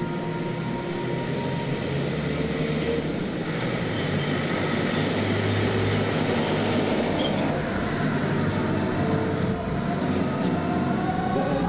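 Ambient soundtrack: a steady rumbling drone with several held low tones, swelling slightly about four seconds in.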